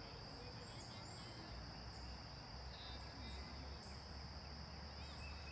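Outdoor ambience: a steady high-pitched insect drone, with a few faint short bird chirps over it and a low rumble coming in about a second and a half in.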